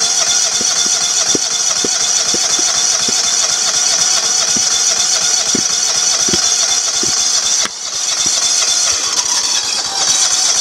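John Deere 170 lawn tractor engine running steadily just after starting, with a brief dip in level about three-quarters of the way through.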